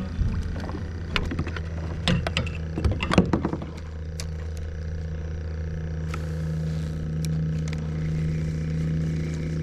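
Boat motor running at a steady pitch, with a flurry of sharp knocks and clatters in the first few seconds.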